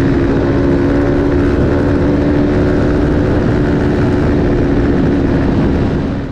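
Aprilia Tuono V4 1100 RR's V4 engine, fitted with an Akrapovic slip-on exhaust, running at steady revs at speed under heavy wind rush on the microphone. It fades out near the end.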